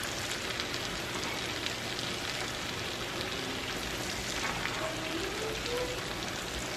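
Melted butter sizzling steadily in a small nonstick frying pan as it is stirred, a continuous fine crackle.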